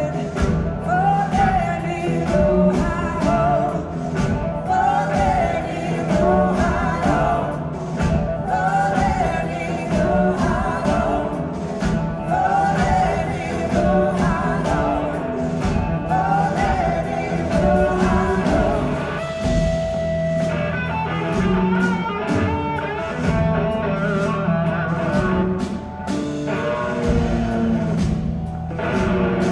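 Live blues-rock band playing with a lead vocal, electric guitar, bass and drums.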